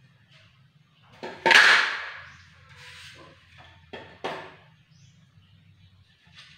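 Knocks and a scrape from floor-tiling work on a cement floor, tools and tiles being set down and tapped into place. The loudest is a rough scraping knock about one and a half seconds in, followed by a few lighter clicks and taps.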